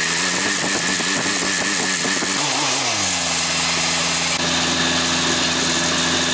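Vehicle engine running with its pitch wavering up and down, then dropping about three seconds in and settling into a steady idle.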